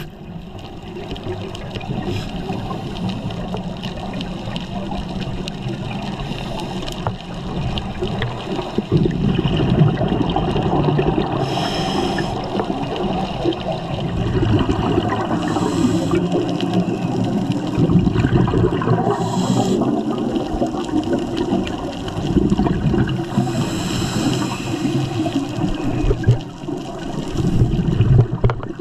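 Scuba diver breathing through a regulator, heard underwater: gurgling rushes of exhaled bubbles about every four seconds over a steady churning water noise.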